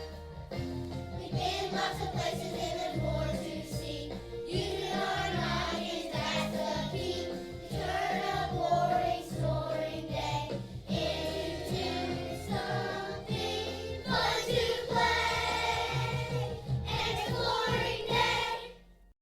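A group of young children singing together over an instrumental accompaniment. The music dies away sharply at the very end.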